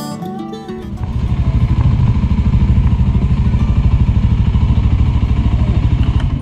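Single-cylinder engine of a Suzuki Thunder 250 (GSX250) motorcycle running while riding along, with a steady, fast pulsing beat. Guitar music ends within the first second.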